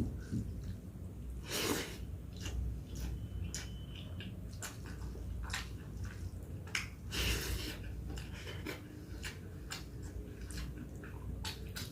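Close-up eating of dal and rice: frequent wet clicks and smacks of chewing, with two louder bursts of noise, one about two seconds in and one past seven seconds.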